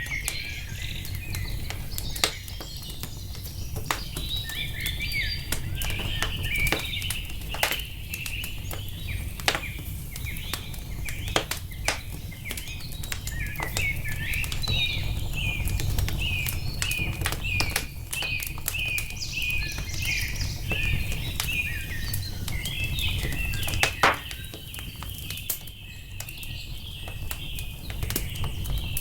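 Wood fire crackling and popping over a low steady rumble, while small songbirds chirp and twitter in quick, repeated notes. One sharp pop near the end is the loudest sound.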